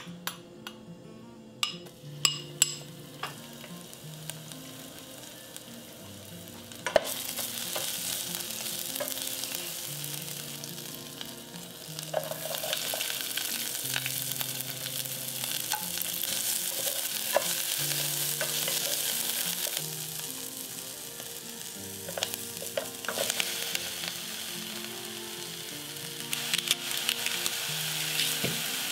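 A few light clicks in the pan at first, then about seven seconds in a loud sizzle starts as ginger, garlic and onion hit hot olive oil in a nonstick saute pan. The frying hiss carries on, easing for a moment near the two-thirds mark, with scattered clicks of stirring.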